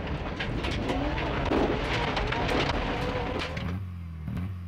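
Rally car engine revving hard, with tyres on loose gravel and sharp clicks of stones striking the car. About three-quarters of the way in it drops to a quieter, steady low engine drone.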